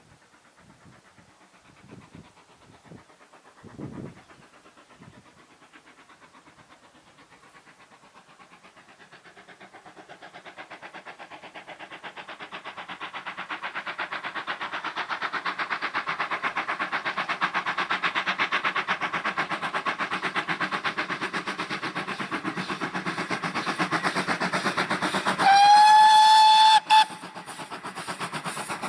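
Steam locomotive hauling a passenger train, its rapid exhaust beats growing steadily louder as it approaches. Near the end it gives one whistle blast of about a second and a half on a steady pitch, the loudest sound, after which the exhaust beats carry on.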